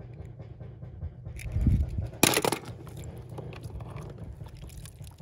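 A small die-cast toy car dropped into a plastic tub of water, with one short splash about two seconds in. Light clicks and knocks of handling come before and after it, over a low steady rumble.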